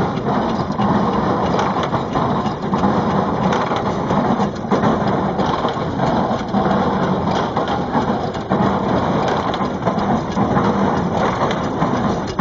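Stationary baler driven by a steam traction engine, running with a steady, dense mechanical clatter and rumble.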